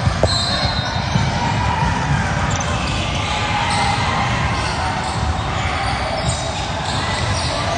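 Indoor basketball gym: a basketball bouncing on the hardwood court amid players' footsteps and voices, all echoing steadily around the large hall.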